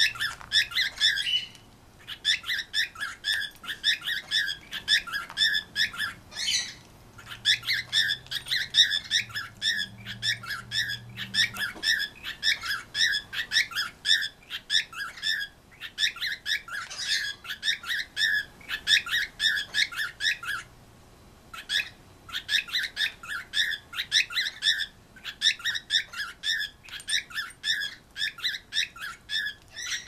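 Cockatiels chirping rapidly and almost without stop, in long runs of quick chirps broken by brief pauses.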